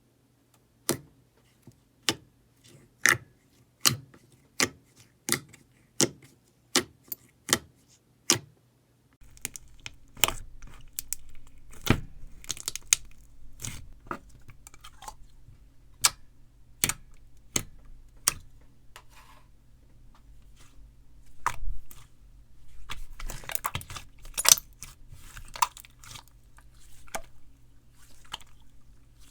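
Slime being handled and squeezed, making sharp clicks and pops about every 0.7 s for the first eight seconds. After that comes denser crackling and crunching over a low steady hum.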